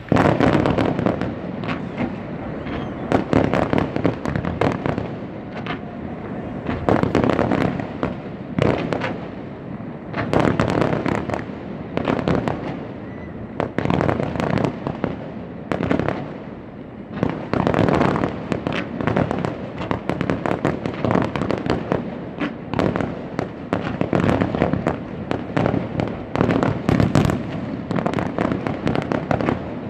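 Fireworks display in full barrage: shell bursts and crackling follow one another closely with no pause, several bangs a second, each trailing off in echo.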